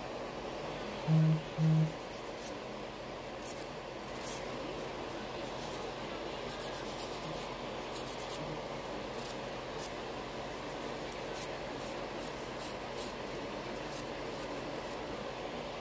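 Nail file scraping across a fingernail in short, irregular strokes, over the steady whir of a nail dust collector's fan. About a second in, two short low tones sound in quick succession.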